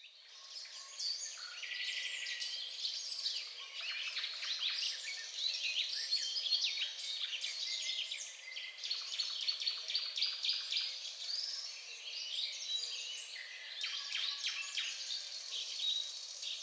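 Several small songbirds chirping and singing at once, a dense tangle of high, quick calls that fades in at the start and carries on without a break.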